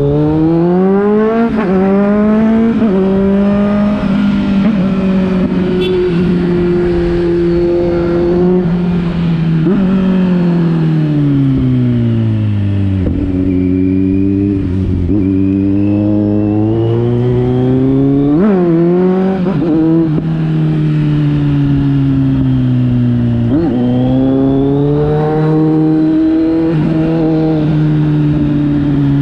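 2021 Kawasaki Z900's inline-four engine through a knock-off Akrapovič exhaust, under way. It pulls up through the gears with a quick dip in pitch at each shift at the start, holds a steady note, and falls in pitch as it slows. It then accelerates hard again through several quick shifts about two-thirds through, and settles back to a steady note.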